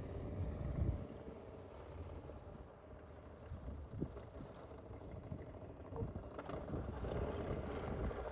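Harley-Davidson V-twin motorcycle engine running as the bike rides away, fading to a faint low rumble after about a second.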